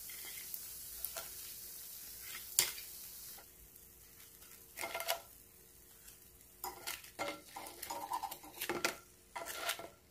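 Oil sizzling faintly under battered sweet potato slices in a nonstick frying pan; the sizzle fades about three and a half seconds in. Wooden chopsticks then click and scrape against the pan in short bursts as the fried pieces are lifted out.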